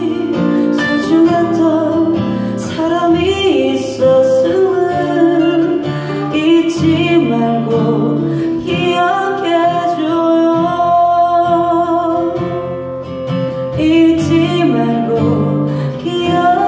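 A woman singing a slow ballad into a microphone, accompanied by two acoustic guitars.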